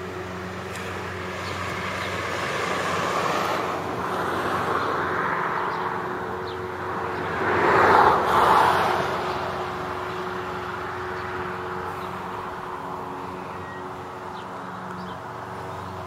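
Road traffic: vehicles passing along the road, their tyre and engine noise swelling and fading twice, loudest about eight seconds in, over a steady low hum.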